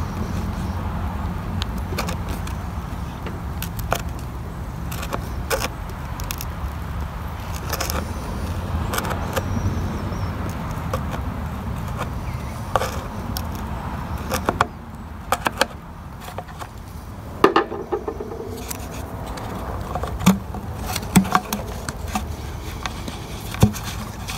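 Flathead screwdriver scraping and clicking against a rubber fuel-tank grommet and the plastic tank as the grommet is pried out, in scattered irregular clicks. A low steady rumble underlies the first half and drops away about halfway through.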